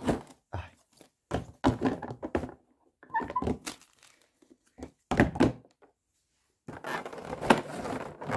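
Clear plastic blister-pack trays being handled and put down: irregular knocks and crinkles, then a longer stretch of steady crinkling near the end.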